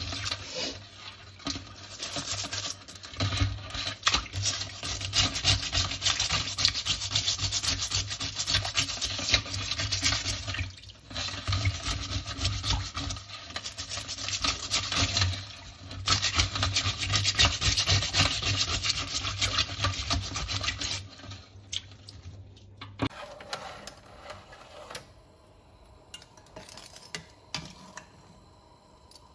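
Stiff plastic brush scrubbing the shells of blue swimmer crabs in a stainless steel bowl of water: rapid, continuous scratching strokes with a short pause near the middle. Near the end the scrubbing stops and only faint, scattered clicks remain.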